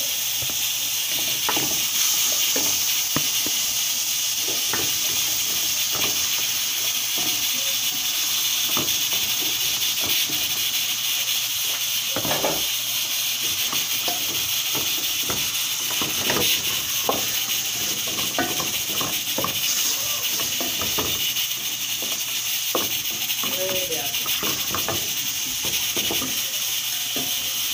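Fish frying in oil in an aluminium pot on a gas stove: a steady sizzling hiss with scattered crackles and light knocks as the fish are turned.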